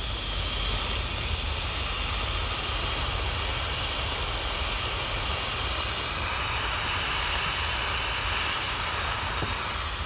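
Electric immersion bucket heater (1500 W) hissing steadily as its element heats a bucket of cold water, bubbles forming on the element.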